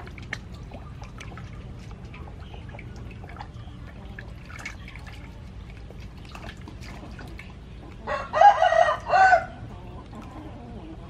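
A rooster crows once, about eight seconds in, one loud call of about a second and a half in several parts. Under it, small splashes and drips of water as a fish is rubbed and washed by hand in a steel bowl.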